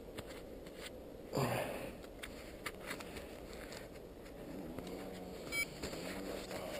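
Low outdoor background broken by a short falling cry about a second and a half in, then a quick run of high electronic beeps from a flight instrument near the end.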